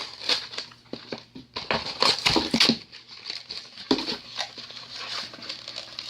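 Cardboard and plastic toy packaging handled and pulled open: irregular crinkling, scraping and tearing rustles as the toy is worked out of its box.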